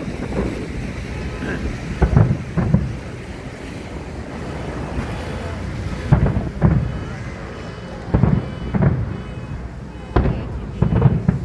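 Aerial fireworks shells bursting in clusters of deep booms, two or three at a time, about every two to four seconds. Underneath is a steady background rumble.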